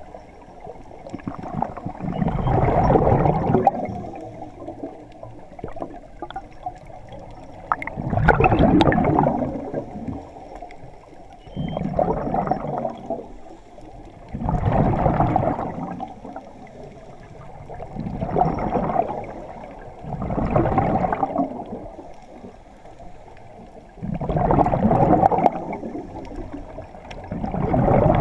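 Scuba diver breathing through a regulator underwater. Exhaled bubbles gurgle out in about seven long bursts, one every three to four seconds, with quieter stretches between.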